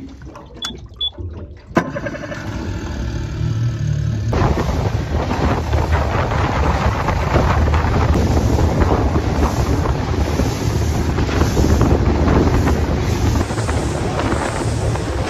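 A boat's motor starting and the boat getting under way: two short beeps, a click, then the engine running steadily, and from about four seconds in a loud rush of wind and water as the boat speeds off.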